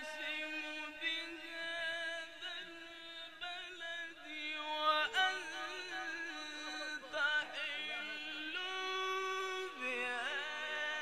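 A man's voice in melodic Quran recitation, holding long, ornamented vowels with trilling pitch. The pitch steps up about two-thirds of the way through and then glides back down.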